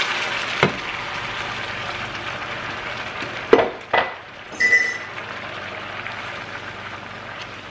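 Beef broth sizzling and bubbling in a hot frying pan of mushrooms; the hiss fades slowly. A few sharp clinks of a utensil against the pan come about halfway through, one with a brief ring.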